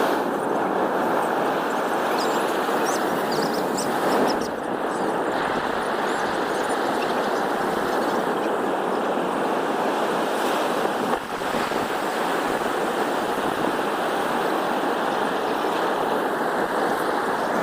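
Ocean surf breaking on the beach, a steady roar of waves.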